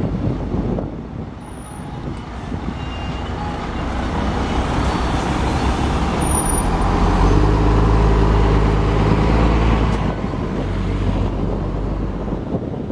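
Scania K400IB coach's six-cylinder diesel engine pulling away and turning, its note growing to its loudest in the second half and easing off near the end. Two brief high squeaks, one early and one about halfway through.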